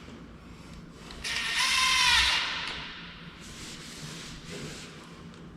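Power drill running in one short burst of about a second and a half, its whine rising then easing off.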